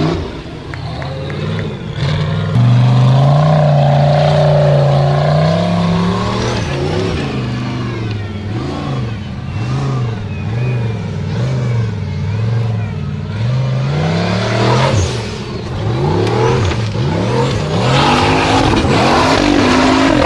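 Formula Offroad competition car's engine revving hard. It jumps to high revs about two seconds in, then rises and falls repeatedly, with quicker swings near the end.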